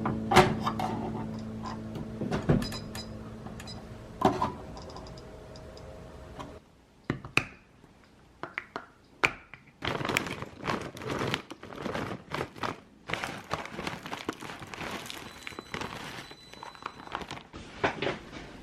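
Background music fading out over the first few seconds, cut by a few sharp knocks, followed by a run of small taps, clicks and knocks of objects being handled, thickening after about ten seconds.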